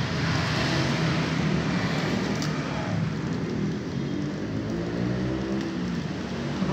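Street traffic: steady road noise with a motor vehicle's engine humming nearby, its hum growing stronger in the middle and later part.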